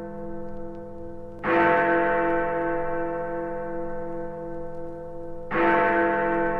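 Large church bell swinging in its tower and struck by its clapper twice, about four seconds apart. Each strike rings on as a long hum of many tones, one of them wavering, that is still sounding when the next strike comes.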